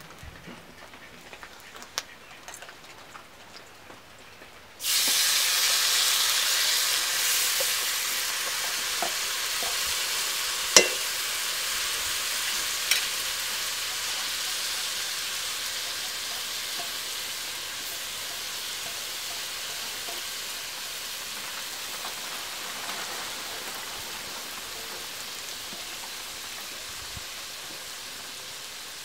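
Food tipped into hot oil in a wok starts sizzling suddenly about five seconds in, the sizzle slowly dying down. There are two sharp metal clinks against the pan partway through.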